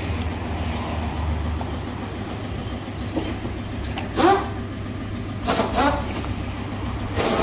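Truck engine idling, a steady low rumble. A few brief higher-pitched sounds that bend in pitch stand out above it about four seconds in, twice around five and a half to six seconds, and again near the end.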